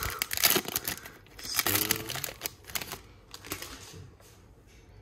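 Trading cards being slid out of a foil pack wrapper and squared into a stack: wrapper crinkling and a run of quick clicks and slaps of card stock, busiest in the first two seconds and tapering off after that.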